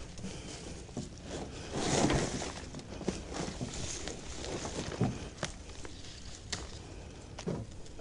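Hands digging through loose compost to pull out sweet potato tubers: irregular rustling and scraping of soil, with a few light clicks and knocks.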